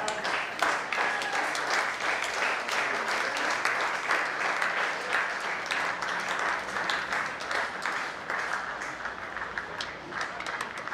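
Spectators clapping: a spell of applause that starts suddenly and thins out near the end, the kind given at a cricket ground when a wicket falls.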